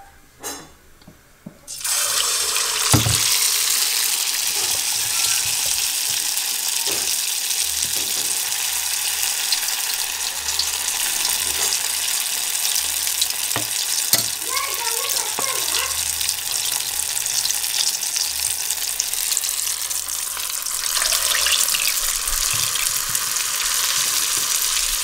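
Batter-coated poornam balls deep-frying in hot oil: a loud, steady sizzle that starts suddenly about two seconds in, with a few faint knocks.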